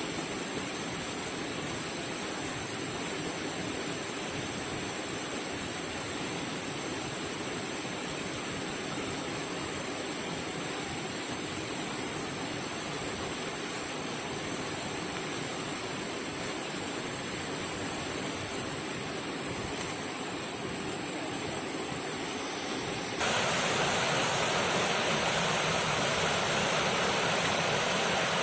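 Waterfall: a steady rush of falling water. It grows louder and hissier about 23 seconds in.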